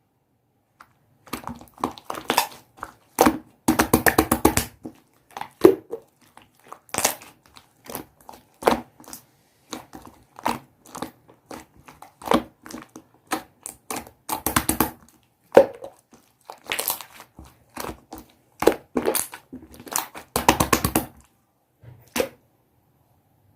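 Clear slime being squeezed and pressed by hand: irregular sticky clicks and crackles, with denser crackling clusters about four seconds in, around fourteen seconds and near the end.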